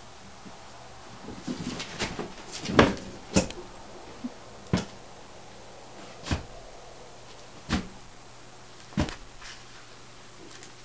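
A series of knocks and bumps: a quick cluster of them a couple of seconds in, then single knocks coming roughly every second and a half.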